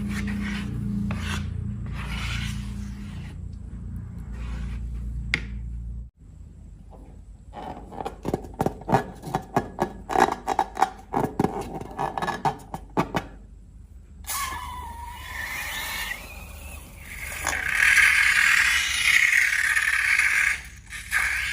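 Slime being handled and mixed, with background music at the start. A dense run of sharp, sticky clicks and crackles follows, then a longer, louder stretch of scraping and squishing.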